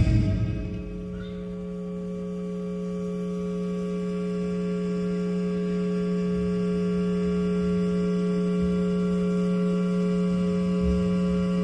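The band's music cuts off right at the start, leaving a steady electrical hum from the stage amplification, several pitched tones at once, slowly growing a little louder. The packed hall stays silent under it.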